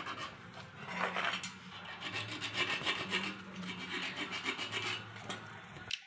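A knife blade scraping along a corroded steel refrigerator condenser tube in repeated uneven strokes, cleaning off the rust so the rotted, leaking section can be cut out.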